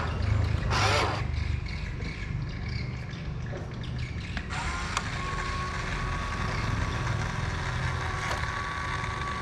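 Huina RC dump truck's tipper-bed motor running as the bed lowers, with a thin steady whine from about halfway over a low rumble. A brief rush of noise about a second in.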